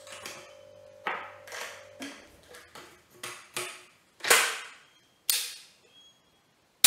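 Spanish sidelock side-by-side shotgun being dry-fired to test the repair: a few lighter clicks as the action is worked, then three sharp snaps of the hammers falling over the last few seconds, the last the loudest. The clean falls show the newly made firing pin and reassembled locks working.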